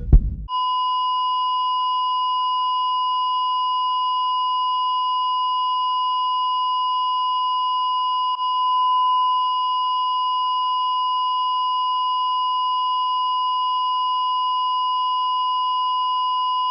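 Hospital heart monitor flatline: a single continuous electronic beep tone, held steady without a break, the signal of no heartbeat. It starts just after a brief low thumping at the very start.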